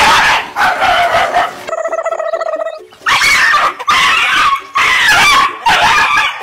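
Dogs barking and yelping in fright at a toy lion pushed at them: a run of loud, harsh outbursts, with a longer, steadier yelp about two seconds in.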